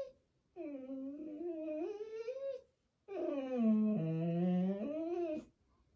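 Golden retriever puppy whining through a closed mouth for attention: two long, wavering whines about two seconds each, the second dipping lower in the middle.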